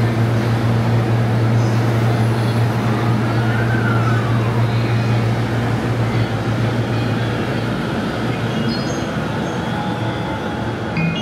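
Electric commuter train running along the station platform: a loud, steady low hum under wheel and track noise, with a brief whine that rises and falls in pitch in the middle; the hum eases off after about six seconds.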